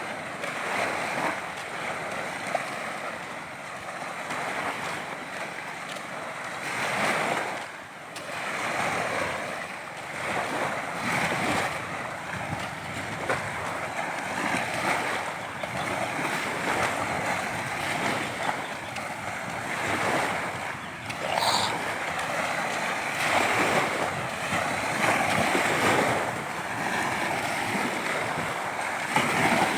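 Sea waves breaking and washing on the shore, a continuous rush of surf that swells and eases every few seconds.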